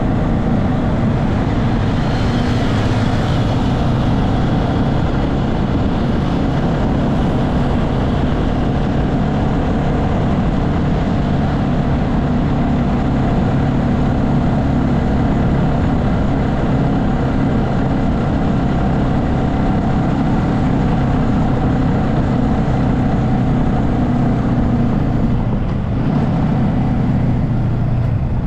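Motorbike engine running at a steady cruise, with rushing wind and road noise. The drone holds an even pitch and level, dipping briefly near the end.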